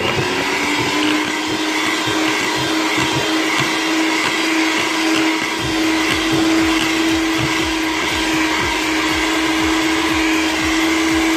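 Electric hand mixer running at a steady speed, its beaters whipping a thick cream mixture in a plastic bowl. It starts abruptly at the very beginning, with a steady motor hum.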